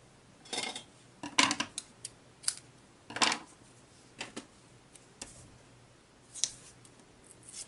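Paper crafting sounds: about eight short, sharp scrapes and rustles of cardstock being handled and pressed onto a scrapbook page, spaced irregularly.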